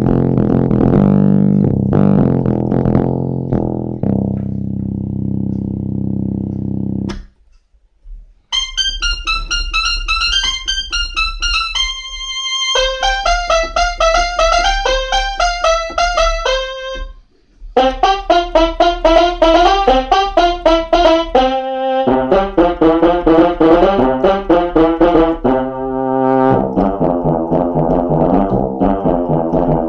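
Kawai FS660 portable keyboard playing short phrases on its built-in preset voices: a low, sustained voice for the first several seconds, then, after a brief gap, a bright voice in quick notes, with another short gap about halfway through.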